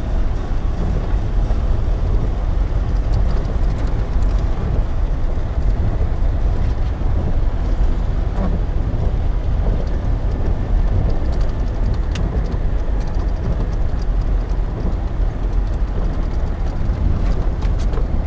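Vehicle driving along a rough road: a steady low rumble of engine and road noise, with a few light knocks and rattles.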